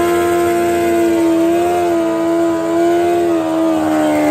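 Inline-four drag-racing sport bike engine held at high, steady revs, its note dipping slightly about three seconds in.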